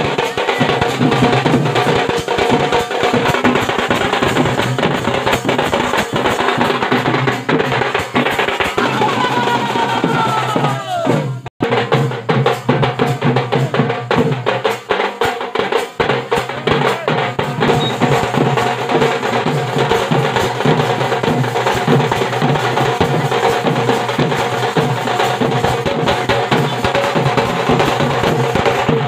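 Loud, fast drumming on a barrel drum (dhol) and a snare drum, played steadily without pause as dance music, broken by an instant cut near the middle.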